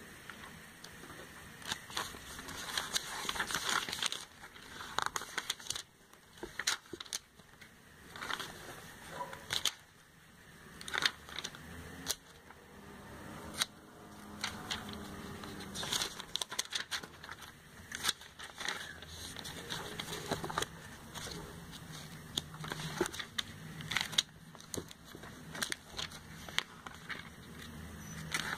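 Glossy catalogue pages being handled and turned by hand: irregular paper rustling with crisp flicks and crackles.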